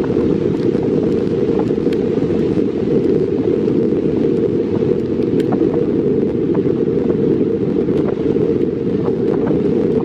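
Wind buffeting the phone's microphone: a loud, steady low rumble that masks almost everything else.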